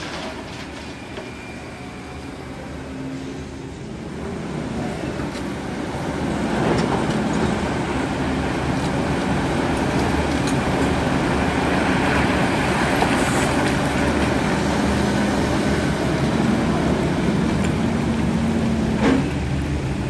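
Heavy machine's diesel engine running, growing louder about five seconds in and then holding steady, with a sharp knock near the end.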